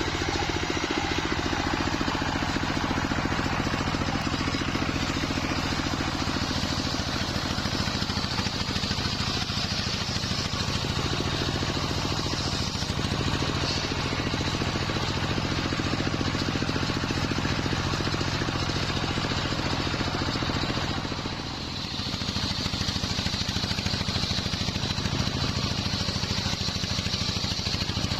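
Sawmill with a wide circular saw blade sawing nyampoh wood: the machinery runs steadily with an engine-like drone, under a hissing cut. The sound eases briefly about three-quarters of the way through, then picks up again.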